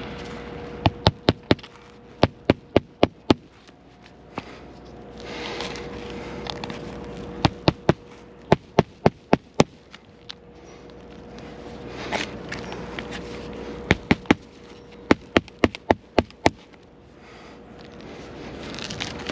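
Hand hammer driving roofing nails into an asphalt shingle during a test shingle replacement: sharp strikes in quick groups of three to five, about three a second, with pauses of a few seconds between groups.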